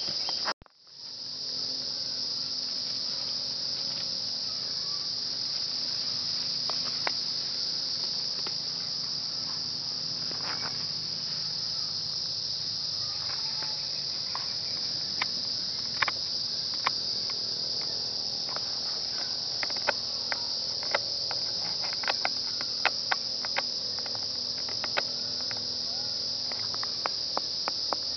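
Steady high-pitched buzzing of a forest insect chorus. The sound drops out for about a second just after the start, and sharp clicks are scattered through the second half.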